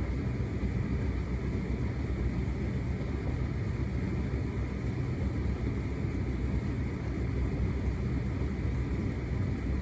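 Hotpoint SUTCD97B6PM condenser tumble dryer running a shirts cycle: a steady low hum from its motor and fan as the drum turns and the shirts tumble.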